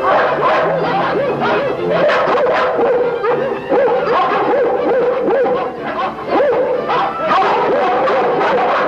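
A pack of dogs barking and yapping all at once, many overlapping barks without a break.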